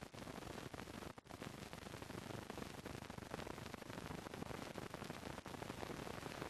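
Steady hiss and crackle of an old film soundtrack with no other sound in it, dropping out briefly twice, about a second in and again about five seconds in.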